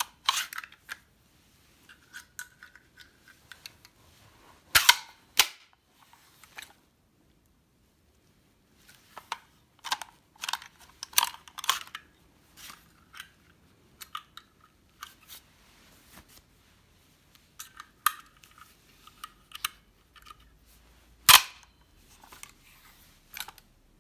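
Metal clicks, clacks and sliding sounds from a nail gun's magazine being opened, loaded with a strip of nails and snapped shut, in scattered groups. The loudest single clack comes about 21 seconds in.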